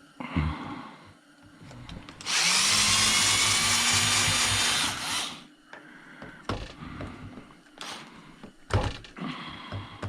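Handheld power drill running for about three seconds, its pitch rising slightly, followed by a few sharp knocks.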